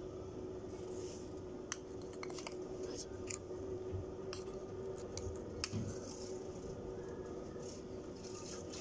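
A metal teaspoon clicking and scraping against a small bowl while scooping out spice powder: a handful of light, sharp clicks over a faint steady hum.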